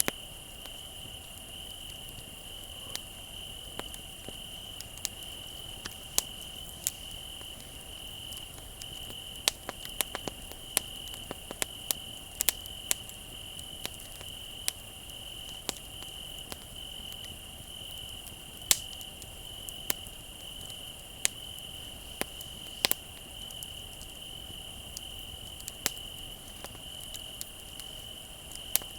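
Crickets trilling steadily through a wood fire crackling, with irregular sharp pops about once a second.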